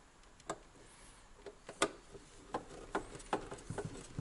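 Hands working cables and small wires inside a metal electrical enclosure: an irregular scatter of light clicks and knocks, the sharpest a little under two seconds in.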